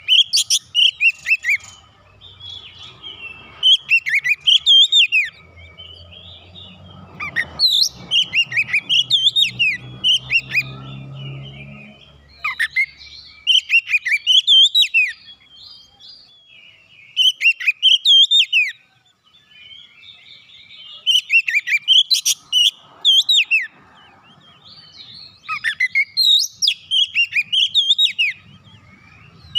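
Oriental magpie-robin singing loud bouts of rapid, varied whistled notes, each a second or two long, repeated every few seconds with short pauses between.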